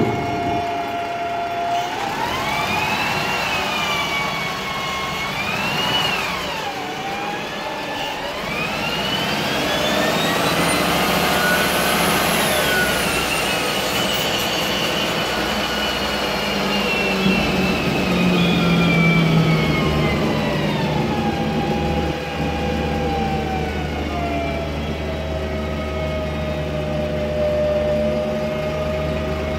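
2007 MAN Lion's Classic city bus under way, heard inside the cabin through an open floor hatch: the whine of its Voith DIWA 864.3 automatic gearbox rises and drops with the gear changes, over the running of its MAN E2876 CNG engine. The pitch climbs twice early on with a sudden drop after the second, then climbs long to a peak about twelve seconds in, falls slowly and settles into a steady tone with a low hum.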